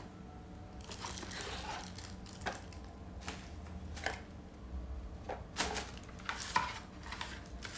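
Small cardboard box turned over and opened by hand: scattered light taps, clicks and scrapes of cardboard.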